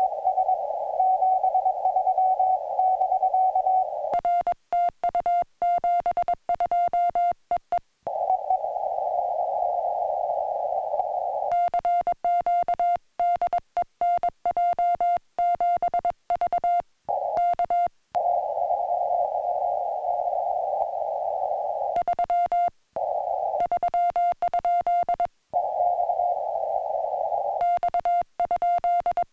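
Morse code on a ham radio transceiver: a steady tone keyed in dots and dashes. Stretches of a weak signal heard in a narrow band of receiver hiss alternate with stretches of clean sidetone from the operator's own keying, with the hiss cutting out while sending.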